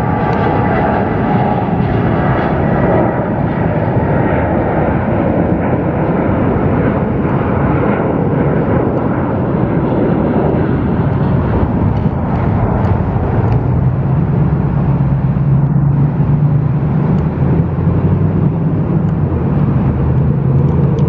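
WestJet Boeing 737's jet engines at takeoff power on the takeoff roll and climb-out: a loud, steady noise whose deep low rumble grows stronger in the second half.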